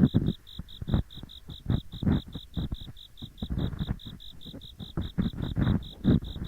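Ear-cleaning ASMR: an ear pick scraping and rubbing in both ears at once, a gritty 'gori-gori' in irregular strokes. Under it, autumn insects chirp in a steady high-pitched pulse of about six chirps a second.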